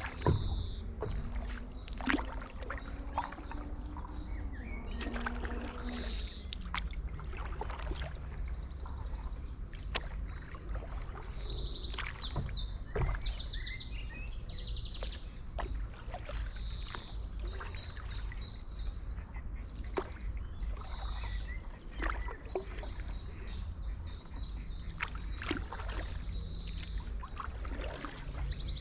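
Songbirds singing repeated short trilled phrases every second or two, over the splashes and knocks of a paddle stroking through canal water. A steady low rumble runs underneath.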